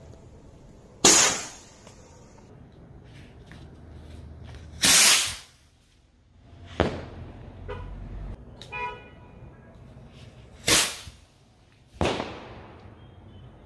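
Five sharp, loud bangs from Diwali sky rockets (Shan-e-Punjab mini rockets) bursting, spread out at intervals of a few seconds, some with a short echoing tail. The report is very loud.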